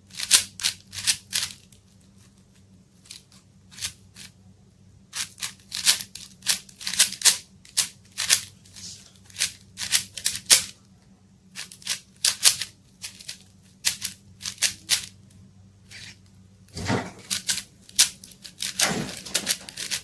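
A plastic 4×4 Rubik's cube being turned by hand: quick clacking clicks as its layers snap round, in rapid bursts separated by short pauses.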